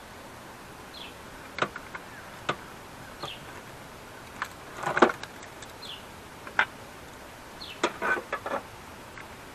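Scattered sharp clicks and taps of parts being handled at the back of an Acura RDX's top-mounted intercooler, with a short rattling cluster about halfway through and a quick run of clicks near the end.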